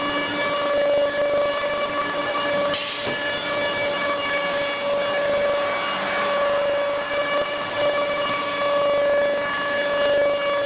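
Quartz stone CNC router's spindle running with a steady, high-pitched whine full of overtones, wavering slightly as it cuts. Two short hisses break in, about three seconds in and again near eight and a half seconds.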